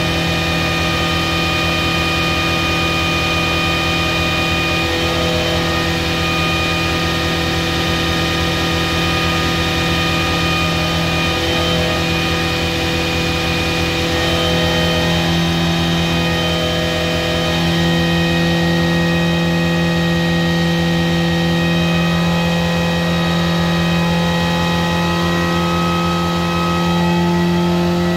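Nissan Micra rally car's four-cylinder engine running under load, held at steady revs for steady-state fuel and ignition mapping on a DTA S40 ECU. The note stays steady and gets slightly louder about two-thirds of the way through.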